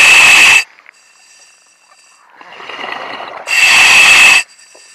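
Diver breathing through a diving regulator, heard over the diver's comms: two loud rushing breaths, each with a whistle-like hiss, one at the start and another about three and a half seconds in.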